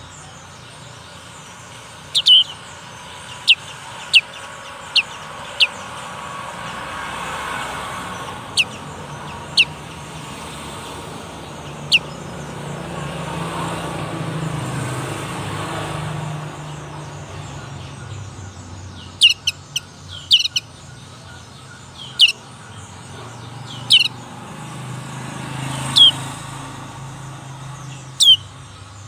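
A young black-capped white-eye giving short, sharp chirps, each falling in pitch. They come singly at first, a second or more apart, then more often and in quick pairs in the second half. It is a young bird learning its song.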